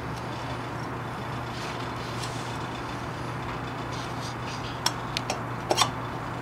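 Steady low hum and hiss of workshop background noise, with a few short, light clicks and taps near the end as the engine's cylinder and parts are handled.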